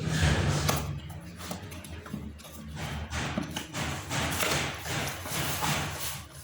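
Handling noise from unboxing a CCTV bullet camera: repeated rustling of packaging mixed with light taps and thumps.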